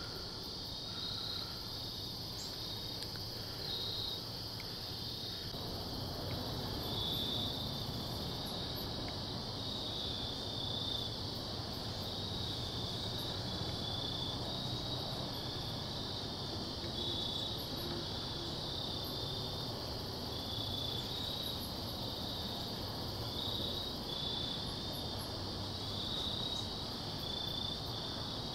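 A chorus of crickets chirping steadily in a high, pulsing trill, over a soft even background hiss.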